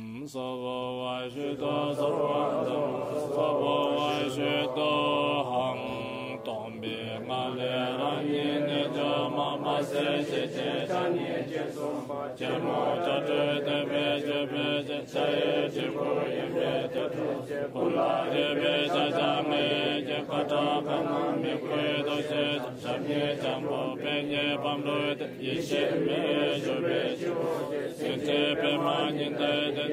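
Tibetan Buddhist mantra chanting, a steady recitation that runs on without a break.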